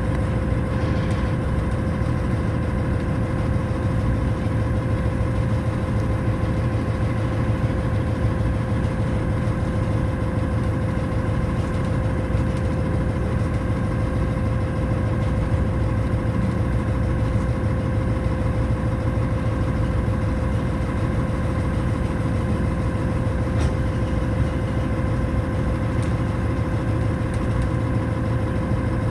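Diesel locomotive engine running steadily, heard from inside the cab as the train moves slowly: a constant low drone with a steady whine above it.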